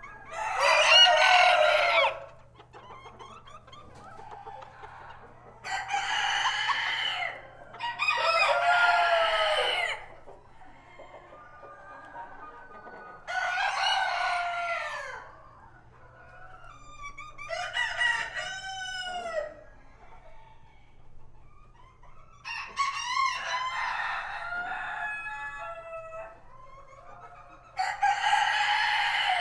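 Roosters crowing in a hen house, seven long crows spaced a few seconds apart, with hens clucking softly between them.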